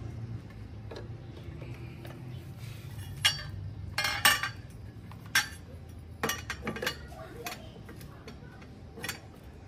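Sharp plastic clicks and knocks, the loudest cluster a little past four seconds in, as the cable connector is pushed into the Starlink dish's mast until it latches with a click.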